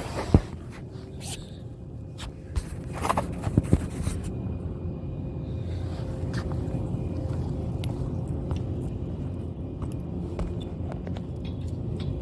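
Steady low rumble, with a few sharp knocks and scrapes in the first four seconds.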